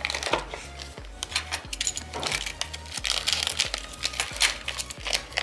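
Background electronic music with a steady beat, over the crinkling and rustling of plastic packaging and bubble wrap being handled.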